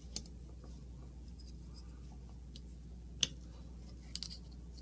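A few light metallic clicks and clacks from handling AR-15 rifle parts while an upper receiver is separated from its lower. The loudest click comes about three seconds in, with a small cluster a second later, over a faint low hum.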